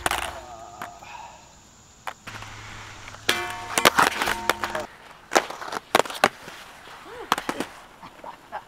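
Aggressive inline skates knocking and slapping on concrete and a steel grind rail in a string of sharp impacts. About a third of the way in, a held ringing tone lasts about a second and a half.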